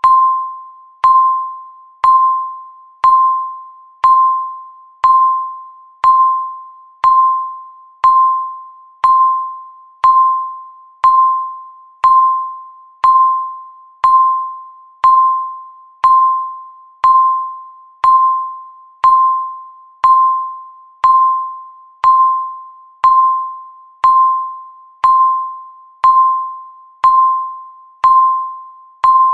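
Countdown timer's electronic chime, one bell-like ding every second, each dying away before the next: the per-second tick of a timer still counting down.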